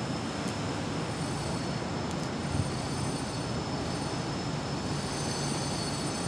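Steady city traffic noise: an even low rumble with hiss, no single event standing out.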